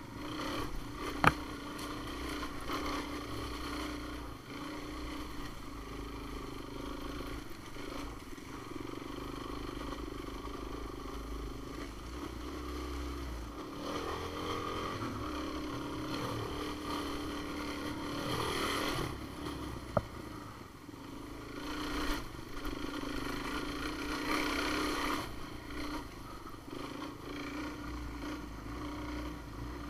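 Off-road vehicle engine running at a steady trail cruise, a constant drone that swells a little now and then, with two sharp knocks, about a second in and again about twenty seconds in.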